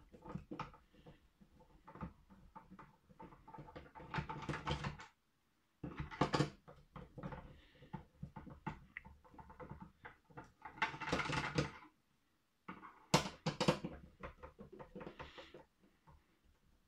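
Hands handling and pulling apart the case of a soldering station, its screws already out: irregular clicks, knocks and scrapes of the housing parts, in several louder bursts, the sharpest clicks near the end.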